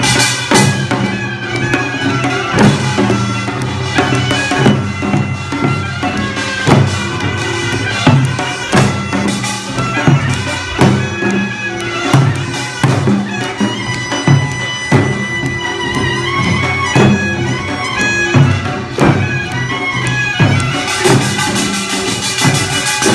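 Korean traditional instrumental music: a reedy, bagpipe-like wind instrument holds sustained notes over drum strokes about once a second.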